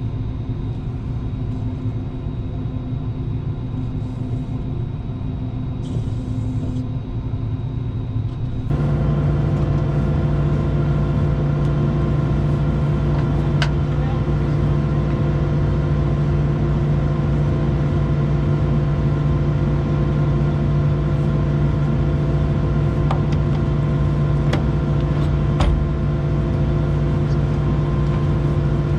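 Heavy diesel farm machinery running steadily with a constant engine hum. About nine seconds in, the sound changes abruptly to a louder, deeper, steady hum. A few faint ticks sound later on.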